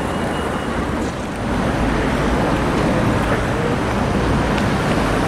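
Busy city-square ambience: a steady rumble of road and tram traffic, growing a little louder about a second and a half in.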